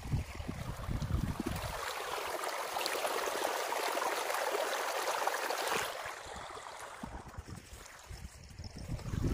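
Shallow stream water running and bubbling over stones, loudest for a few seconds in the middle. Wind rumbles on the microphone at the start and again near the end.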